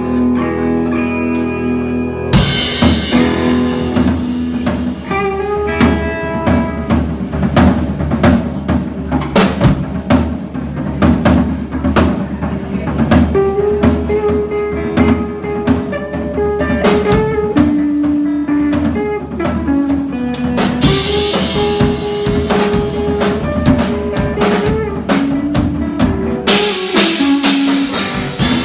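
Live rock band playing: drum kit with bass drum and rimshots, electric guitar and bass, with crashing cymbals from about two seconds in.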